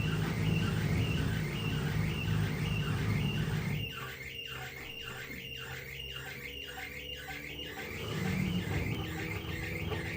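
LG washer-dryer drum turning with a high squeak repeating about twice a second, over the machine's low hum. The hum drops out for about four seconds midway while the squeaking goes on. The squeak comes between the wash and the rinse, and the owner wonders whether the door cuff or the drum shaft seal is the cause.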